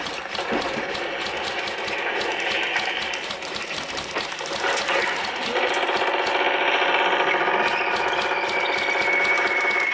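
Airsoft electric guns firing: a continuous mechanical rattle of rapid shots and gearbox clatter, with a steadier humming tone joining about halfway through.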